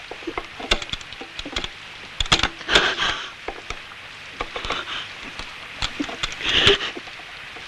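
A series of irregular knocks and clatters, with short rustling noises between them, as of objects being handled and moved about.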